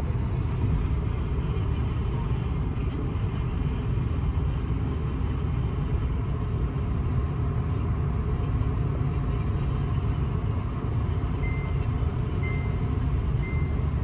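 Steady low rumble of outdoor vehicle noise. Near the end a vehicle's reversing alarm starts, three short high beeps about a second apart.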